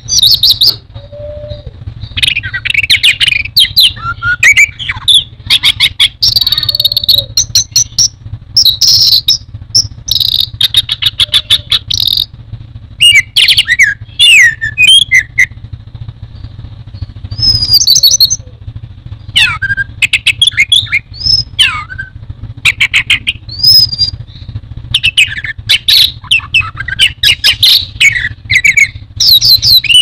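Orange-headed thrush (anis merah) singing loudly in repeated bursts of varied whistles, rapid trills and clicking notes, with short pauses between phrases. A steady low background hum runs underneath.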